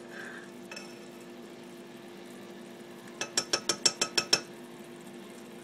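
A metal spoon clinking against the side of a saucepan while stirring, in a quick run of about eight knocks lasting just over a second. A steady low hum runs underneath.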